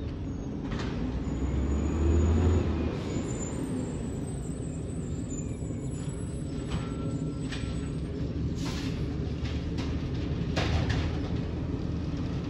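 Garbage truck's diesel engine running low as the truck creeps along the street, swelling briefly about two seconds in. Several short air-brake hisses come in the second half.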